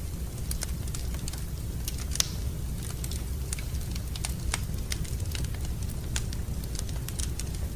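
Wood fire crackling in a fireplace: irregular sharp snaps and pops over a steady low rumble.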